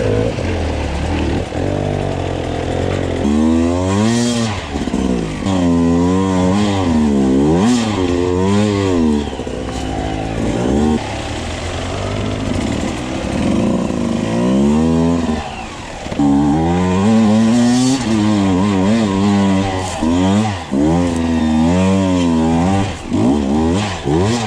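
Enduro motorcycle engine revving up and dropping back over and over as the bike is worked up a rocky trail. The revs rise and fall many times, with a couple of short steadier stretches in between.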